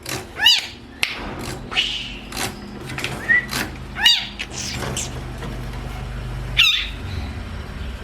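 Long-tailed shrike (cendet) calling: three loud, harsh calls that slide down in pitch, near the start, about four seconds in and near the end, with short sharp clicking notes between them over a low steady hum.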